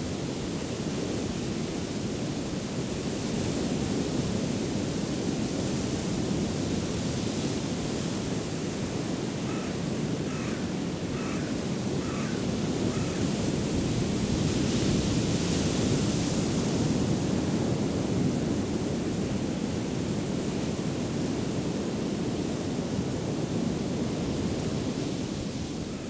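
Ocean surf breaking on a beach: a steady rushing wash that swells louder about halfway through as a big wave crashes.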